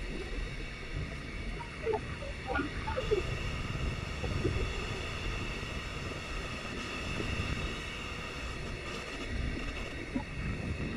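Freight train's wagons rolling past: a steady rumble of wheels on the rails, with a faint steady high-pitched ring over it.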